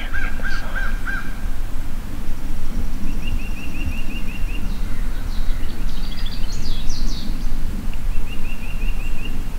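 Wild birds calling and singing: a run of short, evenly spaced notes in the first second, then a quick series of higher repeated notes, a brief high warbling phrase, and the repeated-note series again near the end, over a steady low rumble.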